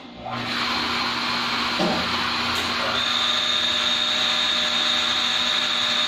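Vertical pump of a water refilling system switching on and running steadily: an electric motor's even hum. A high, steady whine joins about three seconds in.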